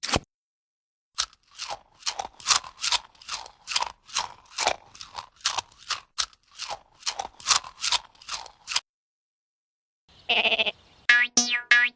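A cartoon sound effect of a long run of crunches, about three a second, then a brief pause. Near the end comes a short rustle and the start of a wavering sheep bleat.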